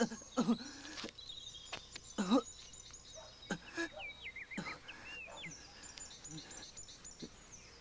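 Birds chirping in the background: repeated high chirps and short trills. A few short wordless voice sounds come in the first few seconds.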